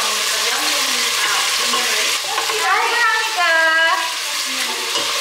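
Food sizzling and frying in a steel pot on a gas stove while it is stirred with a wooden spoon, a steady hiss.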